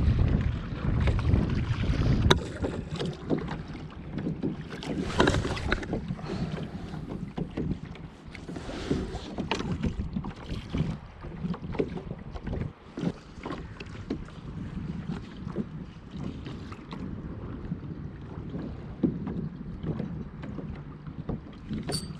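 Water slapping and splashing against the plastic hull of a pedal kayak under way, with wind buffeting the microphone loudly for the first couple of seconds. Many small irregular knocks and clicks run through the wash of the water.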